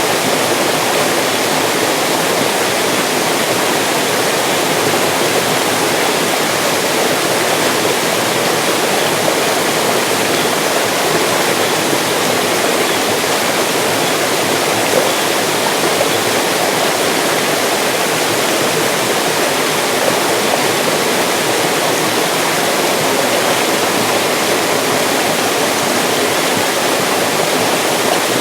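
Mountain stream rushing steadily, an even, unbroken water noise.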